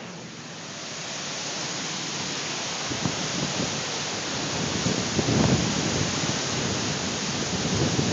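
Strong dust-storm wind rushing steadily. From about three seconds in, gusts buffet the microphone with low, irregular rumbling, heaviest around the middle.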